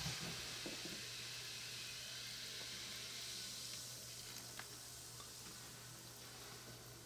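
Faint steady fizzing hiss of effervescent Beaker Creatures reactor pods dissolving in the toy volcano's water, slowly dying down.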